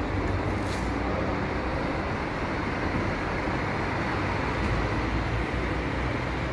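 Diesel coach engine running with a steady, low, even hum. There is a brief faint high hiss just under a second in.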